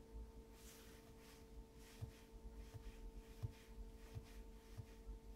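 Near silence: a faint steady electrical hum, with a few soft low thumps from about two seconds in.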